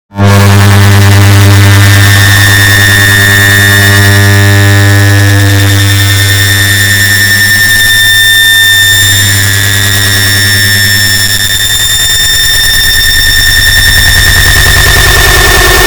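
Distorted, heavily amplified and layered recording of an air conditioner turning on, heard as a very loud steady buzzing drone with a deep hum and a high whine on top. It starts abruptly after a moment of silence and holds near constant, sagging slightly in the middle.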